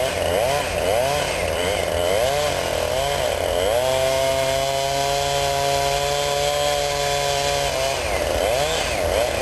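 Two-stroke chainsaw revving up and down in quick pulses, then held at high speed for about four seconds, likely cutting into the cedar trunk; near the end it drops briefly and revs back up.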